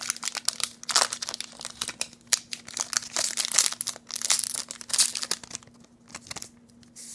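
Foil Pokémon booster-pack wrapper crinkling and tearing as it is worked open by hand, in irregular crackles that thin out after about five seconds.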